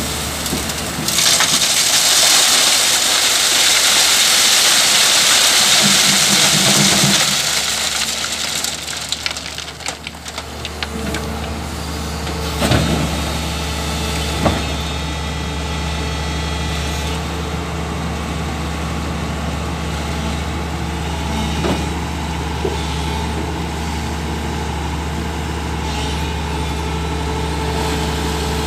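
LiuGong crawler excavator's diesel engine running steadily. For the first several seconds, a loud rush of wet gravel and water pouring from the bucket onto a steel mesh screen; after that the engine carries on alone while the bucket works in the river water, with a couple of short knocks.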